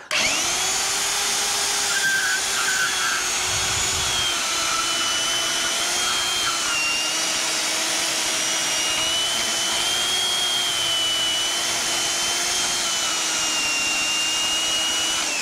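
Handheld bandsaw motor spinning up and running steadily as the blade cuts through thin trailer tubing, just walking through it. Its whine sags a little under load now and then, and it begins to wind down at the very end.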